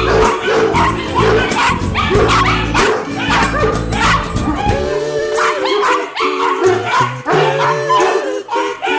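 Dogs barking and yelping in play over a band's song, which runs without singing here; the song's bass drops away about five seconds in.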